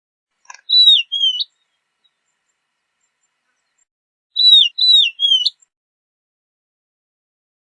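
Horned lark calling: two short phrases about three and a half seconds apart. Each phrase is two or three high, slurred whistled notes that dip and then turn up.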